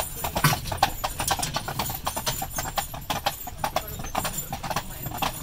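Hooves of a pair of carriage horses clip-clopping at a walk on a wet paved road, an uneven run of several hoof strikes a second.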